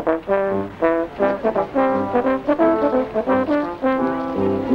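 Brass instruments playing a tune in quick, short notes, several notes sounding together.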